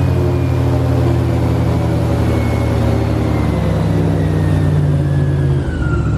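Airboat engine and propeller running steadily, with a faint whine that slowly falls in pitch and a change in the engine note near the end.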